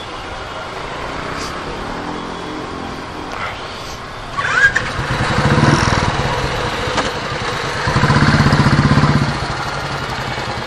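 Motorcycle engine running while riding, heard with wind noise on the helmet-mounted action camera's external mic. The engine swells louder twice, briefly about four and a half seconds in and again for a second or two near the end.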